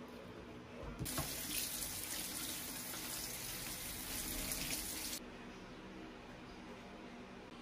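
Kitchen tap running over strawberries held in the hands above a plastic colander in a stainless steel sink. The water comes on about a second in and shuts off abruptly about four seconds later.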